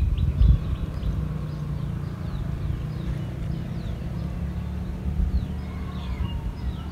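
Outdoor ambience by open water: a steady low rumble with faint short bird chirps over it, and a couple of low bumps right at the start.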